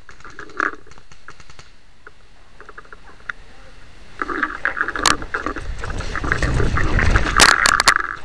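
Loose straw rustling and scraping against the camera as the player pushes into a hay bale. The sound gets louder and rougher about halfway through, with a few sharp clicks near the end.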